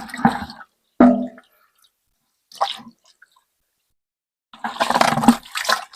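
Short bursts of wet sloshing and squelching, then a longer, busier stretch from about four and a half seconds in.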